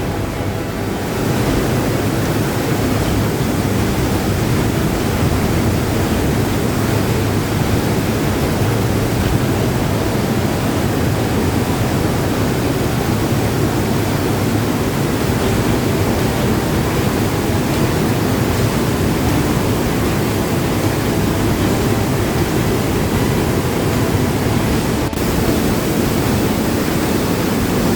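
Steady, loud rushing of a powerful underground waterfall, a mountain torrent plunging about 18 m down the rock inside a cave.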